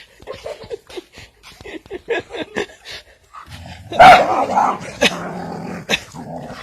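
A dog growling and barking while fighting a chicken. There are short scattered noises at first, then a loud outburst about four seconds in, then a sustained growl.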